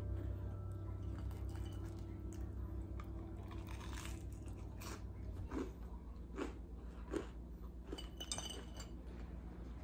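Chewing and crunching as a person bites into a bread roll covered in crunchy cube-shaped topping, with several sharp crunches from about four seconds in. A light clink sounds near the end.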